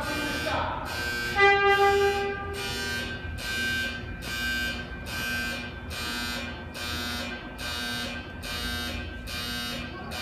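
Electronic warning alarm in a subway maintenance shop, pulsing steadily at a little under one and a half beeps a second. About a second and a half in, a single loud horn-like tone sounds for roughly a second, then fades.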